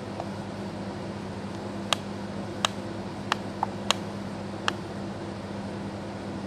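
A steady low hum, like a fan or air conditioner, with six short sharp clicks between about two and five seconds in.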